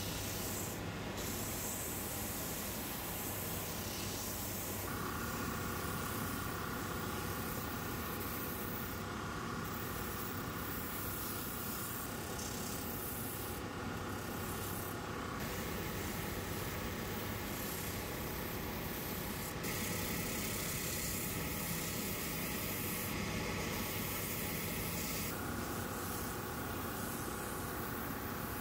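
Shoe-repair finishing machine's abrasive sanding belt running steadily with a motor hum, while cork from a Birkenstock footbed is sanded against it, giving a continuous rubbing hiss. The tone of the sanding shifts several times as the sandal is moved on the belt.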